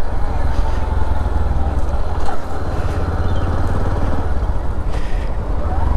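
Motorcycle running as it is ridden along a road, with a heavy, steady low rumble.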